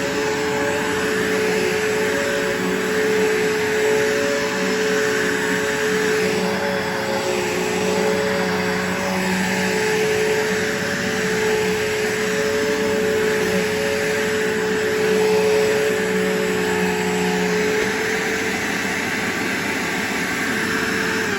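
Bissell vacuum cleaner running steadily, a constant motor whine over rushing airflow noise.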